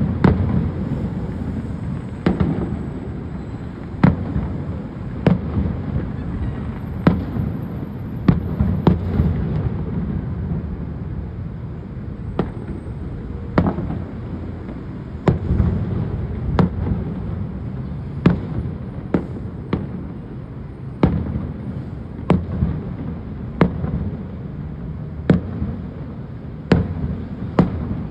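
Aerial firework shells bursting overhead: a steady string of sharp bangs, irregularly spaced at roughly one to two a second, over a continuous low rumble.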